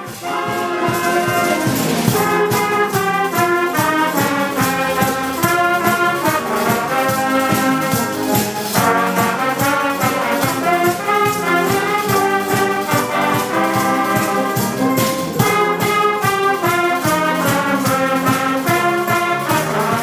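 Concert band playing a lively piece, the brass with trumpets to the fore carrying the tune over a steady beat.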